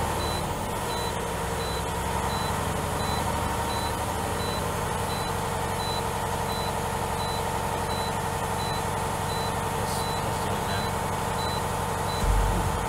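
Semi truck's dashboard warning chime beeping steadily, about one and a half beeps a second, over the steady hum of a heavy truck engine held at raised revs to charge the dead batteries through jumper cables. The beeping stops near the end, and a short, louder low rumble follows.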